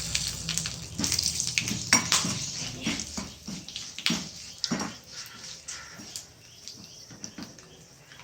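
A tempering of mustard seeds, curry leaves and vadagam sizzling in hot oil in a small pan, with irregular sharp clicks and taps. The sizzle dies down and grows quieter toward the end as the tempering finishes.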